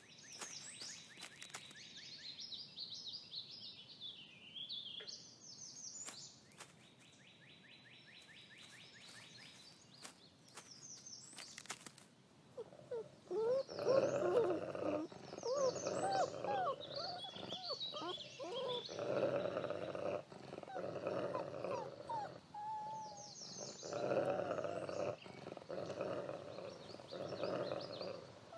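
Birds chirping and trilling for the first dozen seconds. Then a Mexican gray wolf pup whines and squeals while an adult wolf pins it down and mouths it, with rough growl-like bursts of a second or two under the whines.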